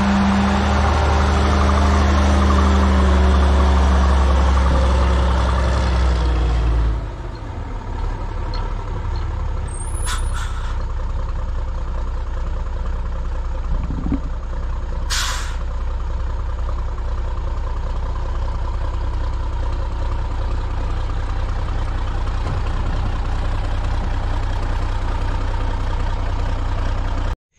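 Diesel engine of a piece of compact earthmoving equipment running loudly, then dropping to a quieter steady run about seven seconds in. A brief hiss comes about halfway through.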